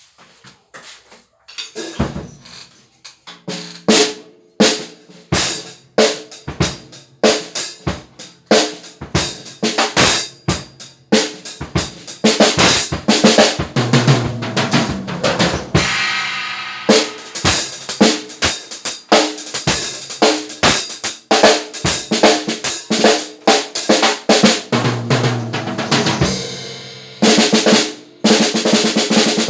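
Drum kit being played with the snare drum to the fore: sparse hits at first, then fast snare strokes, rolls and rimshots over the kick drum, briefly dropping out near the end before loud playing resumes. The snare has just been fitted with new lugs and is being played to show its sound.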